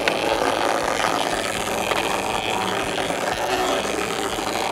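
Small DC vibration motor with an off-centre weight running steadily, buzzing and rattling the ping-pong-ball robot on a wooden tabletop.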